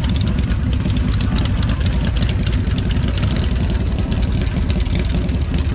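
A car engine idling, a loud, steady low rumble.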